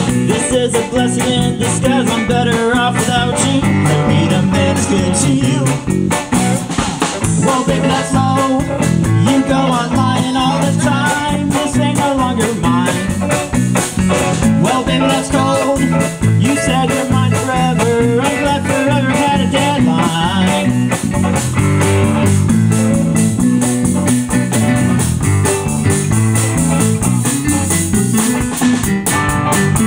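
A live band playing a song with electric guitar, bass, drums and keyboard.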